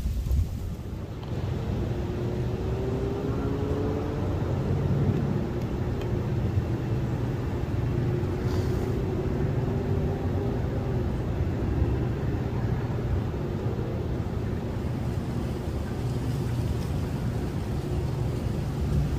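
Steady low rumble of a distant engine, with a faint droning tone that rises slightly in pitch a couple of seconds in and again around the middle.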